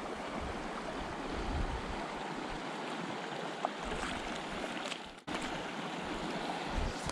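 Shallow river running over cobbles, a steady rush of flowing water. The sound cuts out for a moment about five seconds in.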